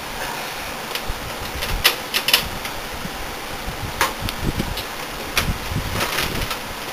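Scattered sharp clicks and a few dull knocks of hands working a desktop computer's hard drive caddy loose from the metal case, over a steady background hiss.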